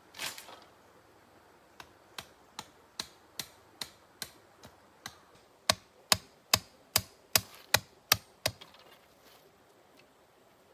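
A brief rustle, then an evenly spaced run of sharp knocks on bamboo, about two and a half a second, growing louder about halfway through and stopping a couple of seconds before the end.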